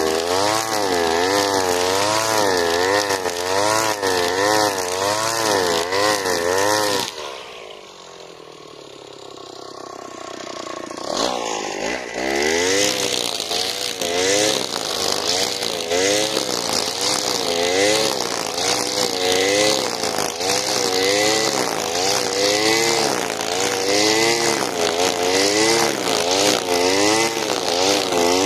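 Alpina Star 55DP two-stroke petrol brushcutter cutting tall grass with its line head, the engine pitch rising and falling about once a second with each side-to-side sweep. About seven seconds in the throttle is let off and the engine drops to a lower, quieter idle. About four seconds later it revs back up and cutting resumes.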